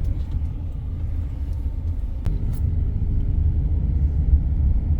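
Steady low rumble of a car on the move, heard from inside the cabin, with a single sharp click about two seconds in.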